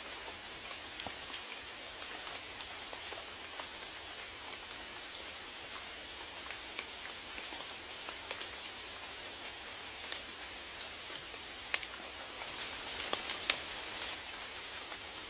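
Steady rain, a soft hiss with many distinct drops ticking on a surface, a few louder drip hits about twelve to fourteen seconds in.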